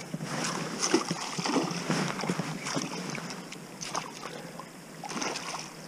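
Water splashing in irregular short bursts as a freshly hooked pike thrashes at the surface while being played on the line.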